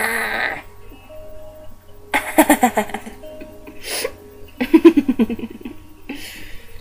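A loud held vocal note cuts off about half a second in. Two bursts of laughter follow, over faint background music.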